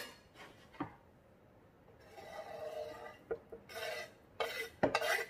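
A kitchen knife scraping diced boiled chicken off a tilted wooden chopping board into a glass baking dish. The loudest scrapes and knocks come in the last second or so, after quieter handling of the board.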